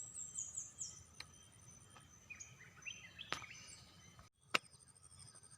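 Small birds chirping in quick runs of falling high notes, over a steady, high insect drone, with two sharp clicks, one past the middle and one about a second later.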